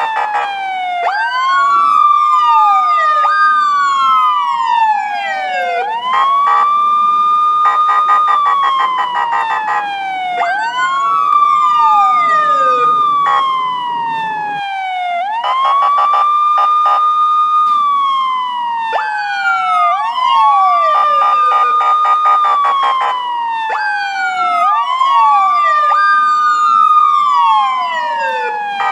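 Police siren wailing in a repeating cycle about every four and a half seconds: the pitch rises quickly, holds high, then falls slowly. A second siren tone overlaps out of step with it.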